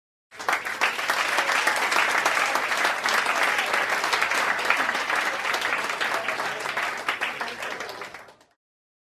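Applause from a crowd: many hands clapping at once in a dense, steady patter that starts abruptly, holds for about eight seconds, then tapers off near the end.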